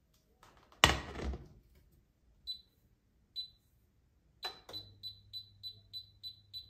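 A loud knock or clatter, then an electronic appliance beeping: two single high beeps, then a quick run of beeps about three a second. A low steady hum comes on just as the run of beeps starts.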